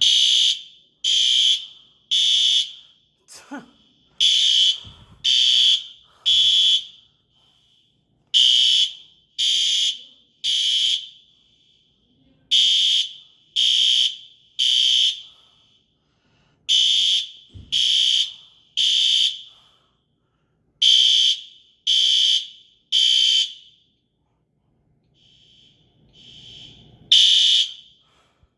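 Building fire alarm sounders beeping the temporal Code 3 evacuation pattern: groups of three high beeps, repeating about every four seconds. Near the end one cycle falters, with a faint beep and a lone beep before the triple pattern resumes.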